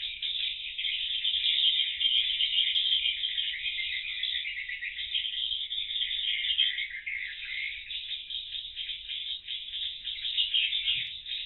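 Edible-nest swiftlet calls: a dense, continuous chattering twitter of many overlapping chirps.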